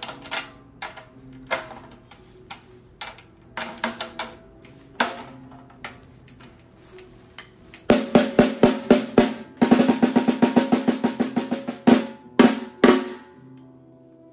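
3D-printed one-piece snare drum at its usual playing tension: single test taps on the head with short pitched ring for the first eight seconds, then a burst of rapid stick strokes and a roll, ending in a few accented hits about thirteen seconds in.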